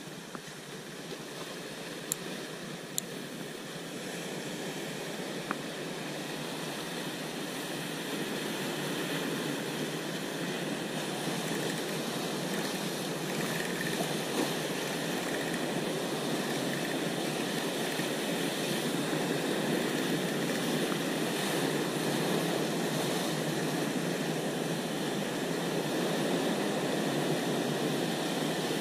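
Sea surf breaking and washing over the rocks below: a steady noisy rush that grows gradually louder, with a few light clicks in the first few seconds.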